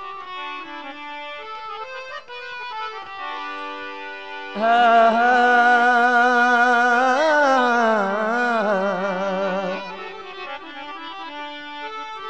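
Instrumental opening of a Rajasthani folk wedding song: held reed-keyboard notes, joined about four and a half seconds in by a louder long melody note that wavers and slides down, fading out about ten seconds in.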